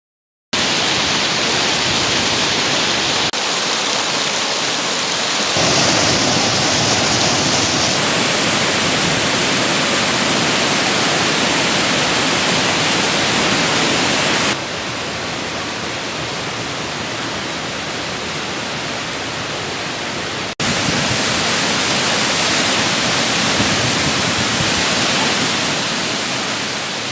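Loud, steady rush of flowing water, changing abruptly in level and tone several times, as between separate takes.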